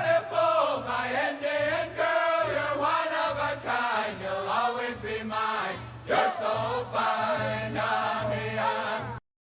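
Powwow singing: a group of voices chanting in high, wavering voices over a steady drumbeat. It cuts off suddenly near the end.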